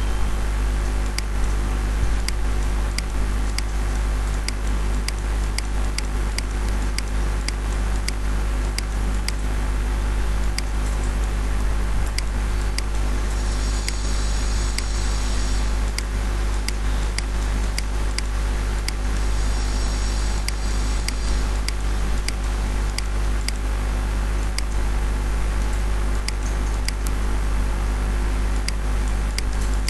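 Steady low electrical hum and hiss under sharp computer mouse clicks, about one or two a second, as points of a selection path are placed. A brief high hiss comes in twice, about halfway through and again a few seconds later.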